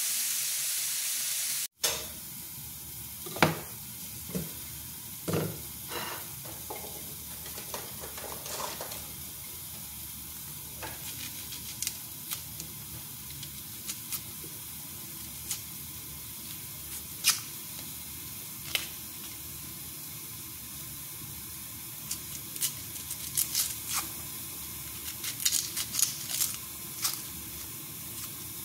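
Lamb pieces sizzling in a stainless steel frying pan, cut off suddenly after a couple of seconds. Then a small knife and fingers peeling the dry, papery skin off red onions: scattered small crackles and clicks over a faint steady hiss.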